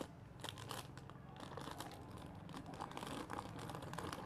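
Faint crinkling of plastic jewellery packets as hands handle a gold-coloured chain necklace over them, in short irregular rustles, with a low steady hum underneath.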